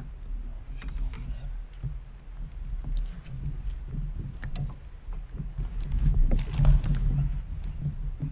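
Kayak on the water during a fish fight: a low sloshing rumble with scattered knocks and clicks from the rod and gear. The knocks and splashing are loudest about six to seven seconds in.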